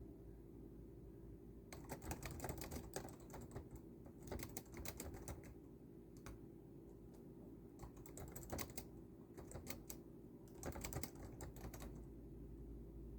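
Typing on a computer keyboard in four short runs of rapid keystrokes with pauses between them, over a steady low hum.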